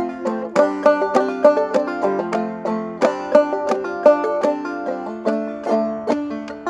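Five-string banjo played clawhammer style: an even, driving run of struck and plucked notes. It is in G modal tuning with the fifth string dropped to F.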